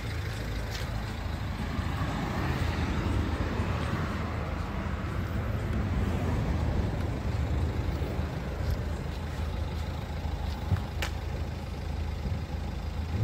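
Steady vehicle noise with a low hum, with a few faint clicks through it.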